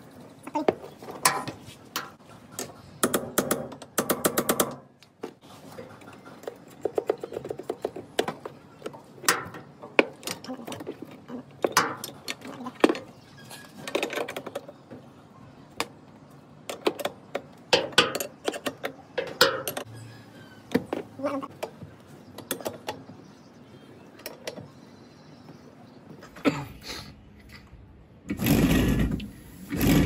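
Plastic windshield cowl panel being handled and pressed into place around the wiper linkage: scattered sharp clicks, snaps and light knocks of plastic clips and trim. Near the end comes a longer, louder rustling stretch.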